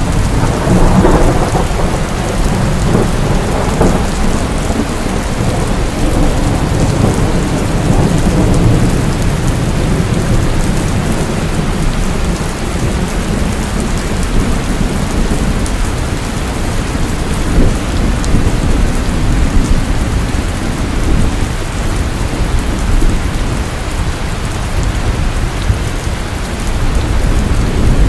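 Heavy night rain falling steadily, with low rolling thunder rumbling underneath that is strongest in the first few seconds.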